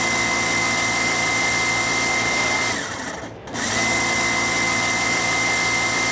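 Spark plugs firing continuously on a demonstration rig's ignition coil: a harsh electrical buzz of rapid sparks across the plug gaps with a steady high whine, in two runs that break off for about half a second around three seconds in.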